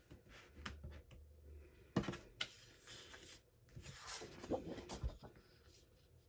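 Sheets of 12 by 12 scrapbook paper rustling as they are flipped through by hand, with a few sharper paper slaps about two seconds in and again around four and a half to five seconds in.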